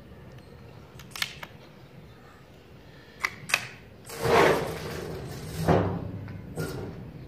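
Mechanical handling of a BSA Stutzen .177 air rifle's action: a few sharp metallic clicks, then two louder scraping strokes a little over a second apart, as the rifle is worked between shots.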